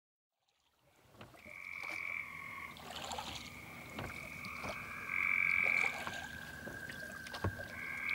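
Frogs croaking in a chorus of long, steady high trills that come and go, fading in from silence about a second in.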